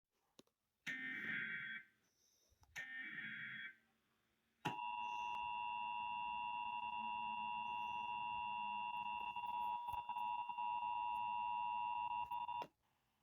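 Emergency Alert System test played through a TV's speaker: two short bursts of the screeching digital SAME header data, then the steady two-tone EAS attention signal held for about eight seconds before it cuts off.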